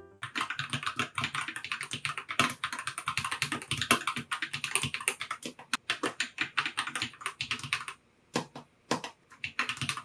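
Fast typing on a TM680 (Tom680) budget mechanical keyboard, a steady run of key clacks. It is unmodded, with stock stabilizers and no foam mod. The typing breaks off briefly about eight seconds in, a few single keystrokes follow, and then it picks up again.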